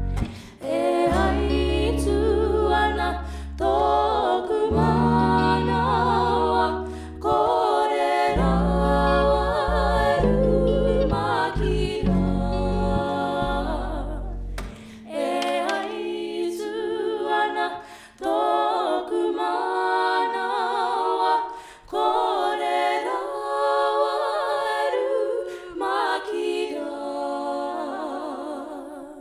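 Young women's voices singing together in harmony, backed by bass guitar and guitar for the first half. About halfway through the instruments drop out and the voices carry on unaccompanied, a cappella, until the song ends just at the close.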